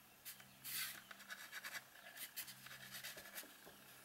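A few short, dry scratches and rustles of a china marker and hand against drawing paper, the loudest a little under a second in, over a faint steady electrical hum.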